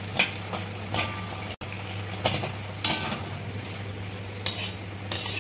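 Hot oil sizzling around a maida pastry cup deep-frying in a wok. A steel bowl sits inside the cup to hold its shape, and a perforated steel spatula clinks against the bowl several times.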